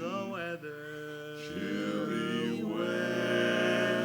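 Barbershop chorus singing a cappella in close harmony, holding long chords that shift a few times and swell to the fullest, loudest chord in the second half.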